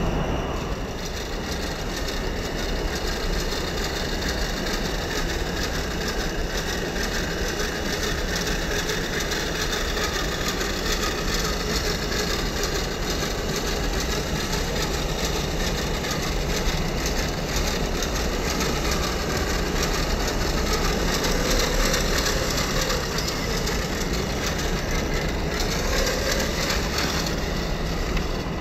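The electric motor and geared drivetrain of an RC4WD Gelande 1:10 scale crawler run steadily as it drives, with its tyres crunching over dirt and rock. A faint whine wavers in pitch in the second half.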